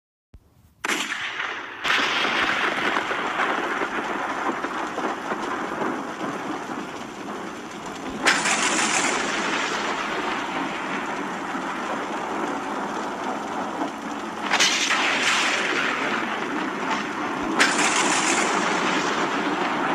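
Thunderstorm sound effect: a steady rushing noise that starts about a second in, broken by three sharp thunder cracks, the last near the end.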